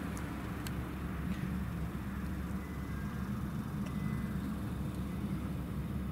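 Steady low outdoor rumble, with a few faint sharp clicks in the first second and again about four seconds in.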